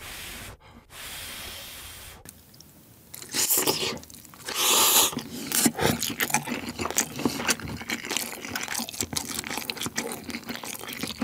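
Close-miked eating sounds of a person with a mouthful of cheesy spicy ramen noodles: a steady slurp at the start, two louder breathy bursts around four and five seconds in, then wet chewing with many small lip and mouth clicks.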